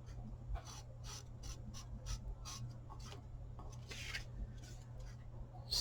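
Paper being handled and rubbed, a series of brief, faint, irregular scratchy strokes over a steady low hum.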